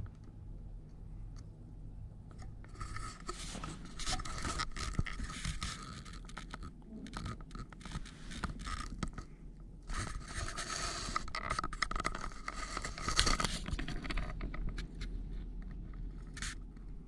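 Feather-boa wand toy scraping and rustling over carpet close to the microphone, with quick scratchy clicks, in two stretches of a few seconds each: one about three seconds in, the next about ten seconds in.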